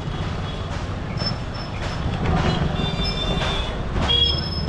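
Busy street traffic: motor scooter and motorbike engines running close by over a steady low rumble, with short high-pitched squeals now and then.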